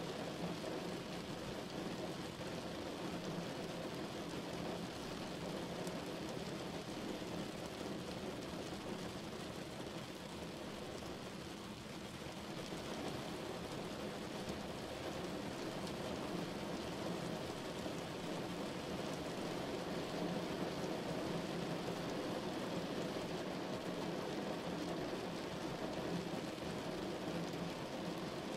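Steady rain falling outside a window, an even hiss that eases slightly about twelve seconds in.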